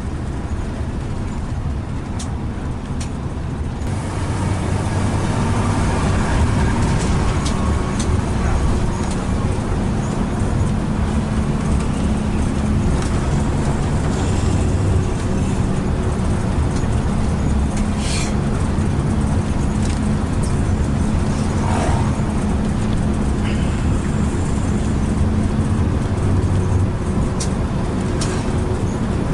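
Intercity coach bus running along the road: a steady engine drone with road noise and a few short clicks, growing a little louder about four seconds in.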